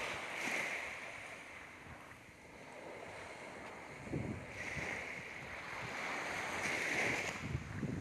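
Small waves washing up onto a sandy beach, the hiss swelling three times as each wave runs up the shore, with wind rumbling on the microphone.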